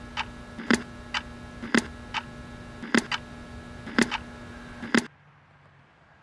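Ticking like a clock: a loud tick and a softer tock about once a second, over a steady hum. It all cuts off suddenly about five seconds in.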